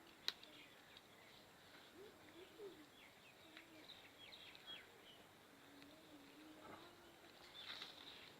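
Near silence, with faint bird chirps and a low cooing in the background and one sharp click about a third of a second in.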